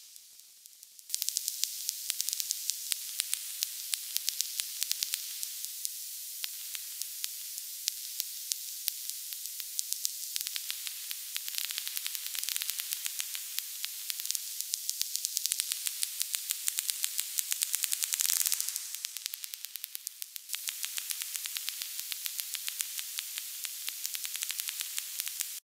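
Pulse-type electric fish discharges picked up by antennas and turned into sound: a hissing static packed with rapid sharp clicks, with faint steady hums underneath. The texture shifts a few times and drops away briefly about three-quarters through before resuming.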